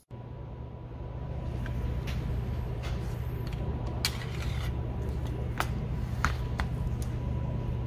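Luger P08 9mm pistol being handled: a series of short, sharp metallic clicks as its toggle action is worked and the gun is set down, over a steady low hum.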